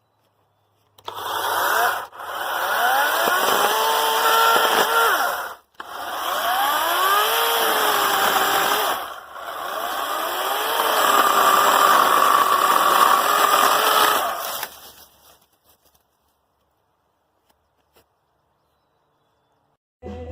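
Greenworks 40V brushless cordless chainsaw cutting wood in three runs, each with a rising whine as the motor spins up and then a steady pitch under load. It stops about fifteen seconds in.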